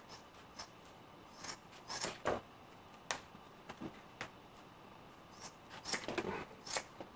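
Large fabric shears snipping through grey fabric in short, irregular snips, several in quick succession about two seconds in and again near the end.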